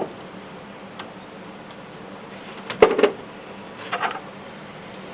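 Sharp metallic clinks and knocks of hand tools on engine parts while bolts are worked loose: a faint tick about a second in, a loud cluster of knocks near the middle and a smaller one a second later, over a steady low hum.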